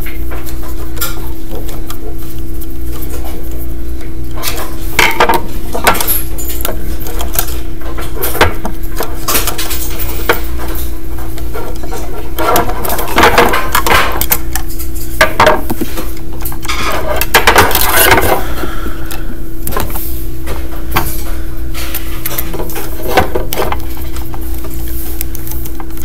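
Hand work on a single-pole light switch with a screwdriver: scattered clicks, taps and short rattles of metal and plastic, busiest in two bursts around the middle, over a steady low hum.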